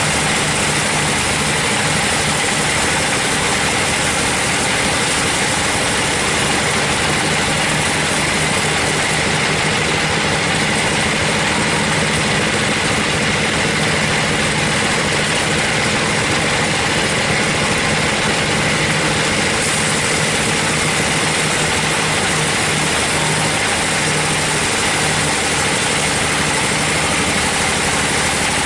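Band sawmill running, its blade ripping lengthwise through a teak log: a steady machine noise with an engine hum underneath.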